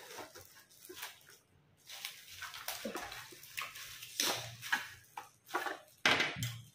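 Clear plastic wrapping crinkling and rustling in irregular handfuls as it is pulled off a new digital weighing scale.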